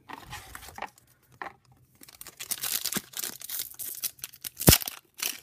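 A hockey card pack wrapper being torn open and crinkled by hand. The rustling is sparse at first and turns dense about two seconds in, with one sharp click near the end.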